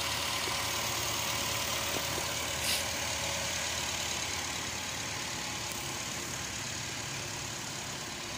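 2019 Nissan Sunny's four-cylinder petrol engine idling steadily, running again after a no-crank fault from a burnt connector was repaired. A short click sounds about three seconds in.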